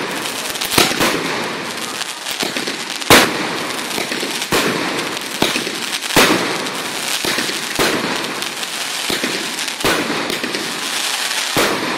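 Aerial fireworks going off in quick succession: a sharp bang every second or two, the loudest about three seconds in, over a continuous dense crackle of bursting stars.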